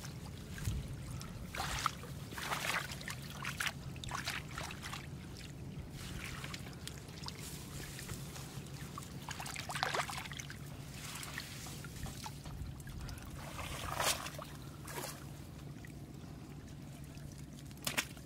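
Shallow floodwater splashing and trickling as a hand net is worked through flooded grass and fish are grabbed from the water by hand. The splashes come in scattered bursts, the louder ones about ten and fourteen seconds in.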